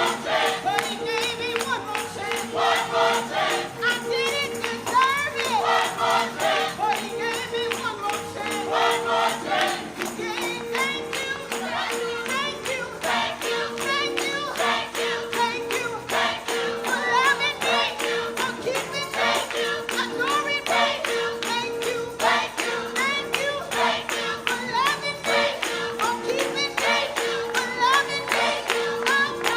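Gospel worship music: voices singing over a steady percussive beat, with one note held underneath throughout.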